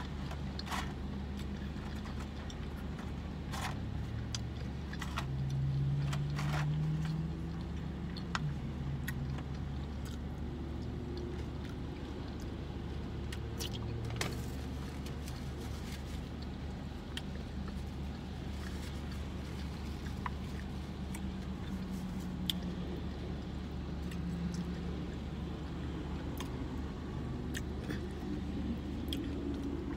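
Steady low hum of a parked car idling, heard from inside the cabin, with scattered crinkles and clicks of an aluminium foil takeout tray being handled.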